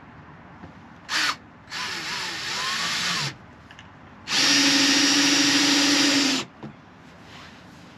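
Cordless drill running in three bursts: a short blip, a run of about a second and a half with its speed wavering, then a steady run at full speed for about two seconds.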